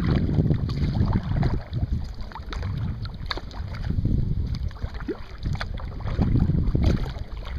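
Small splashes and drips of water from a kayak paddle, with wind rumbling on the microphone in low swells.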